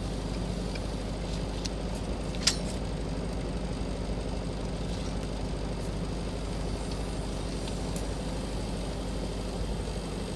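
Steady electric welding buzz while a stainless steel flange is welded, with one sharp click about two and a half seconds in.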